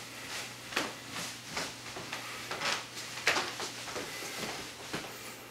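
Rhythmic shuffling footsteps and clothing rustle of a man dancing with no music, about two or three scuffs a second, over a faint steady hum.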